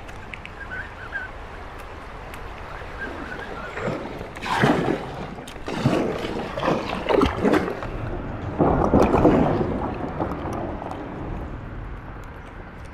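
Kayak paddle strokes splashing and dripping in the river, a run of surges roughly a second apart, over a steady low wind rumble on the microphone.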